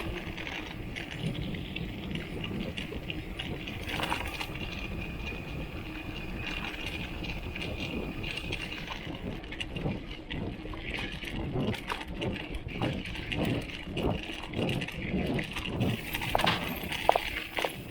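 Giant XTC mountain bike ridden over rough ground, its bottle cage rattling in repeated metallic clicks and clatters over a steady hiss of riding noise. The rattling grows busier in the second half.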